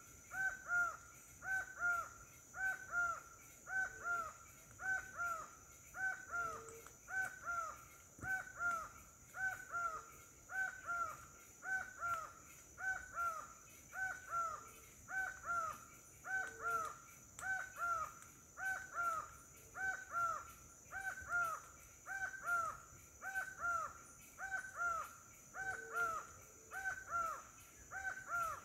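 A bird calling over and over, each call a pair of quick downward-slurred notes, repeated very regularly about once a second. A steady high-pitched hum runs underneath, and a few short low notes come now and then.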